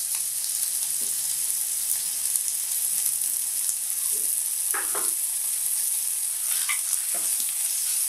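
Vegetables sizzling steadily in hot oil in an electric cooking kettle, a tempering of chilli, capsicum, tomato and freshly added grated carrot, with a few light pops.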